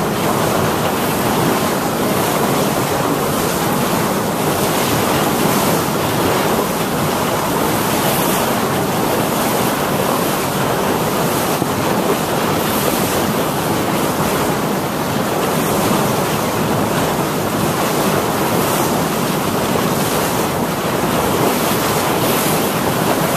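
Steady wind noise on the microphone over the rush of water along a moving boat's hull.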